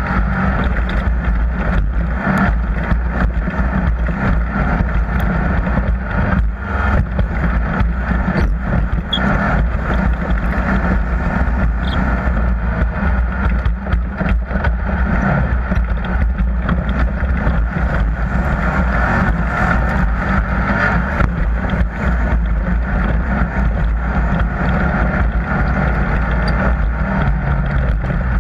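An off-road racing vehicle's engine running at a steady speed: a loud, continuous drone with scattered clicks and knocks.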